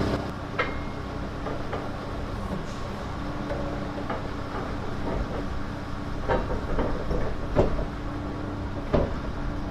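Scattered sharp knocks and thumps on a wooden trailer deck, about six of them, from footsteps and a heavy old cast-iron bandsaw being handled, over a steady low hum like an idling engine.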